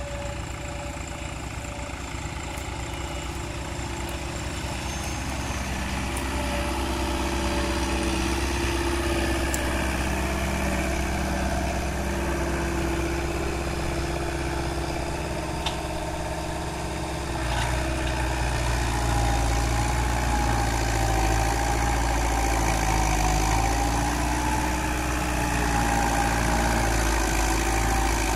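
New Holland 80-66S tractor's four-cylinder diesel engine running steadily under load as it pulls a subsoiler through the field. The sound grows louder as the tractor comes close, with a wavering whine over the engine in the second half.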